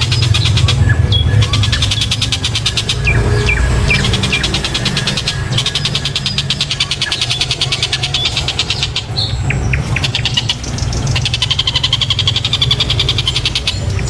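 Javan kingfisher (tengkek buto) calling in a fast, harsh rattle of rapid repeated notes, in long runs with a few short breaks, over a steady low hum.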